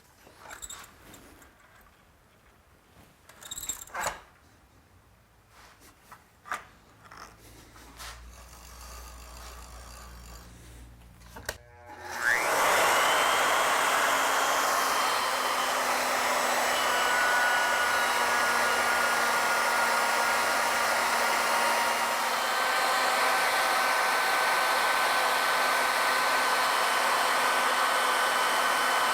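Scattered clicks and knocks of the mill being set, then about twelve seconds in a wood router starts up with a rising whine and runs steadily, cutting a spiral groove with a V-groove bit.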